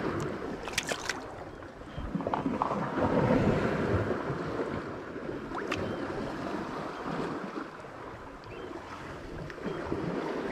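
Sea surf washing over shore rocks on an incoming tide, with some wind on the microphone. A wave surges louder about three to four seconds in, and there are a few short clicks about a second in.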